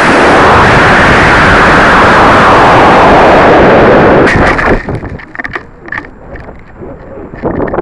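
Estes model rocket's C6 black-powder motor igniting and burning, heard from the onboard keychain camera riding on the rocket as a sudden, very loud rushing roar that overloads the microphone. About four to five seconds in it drops away to wind buffeting and crackling as the rocket coasts.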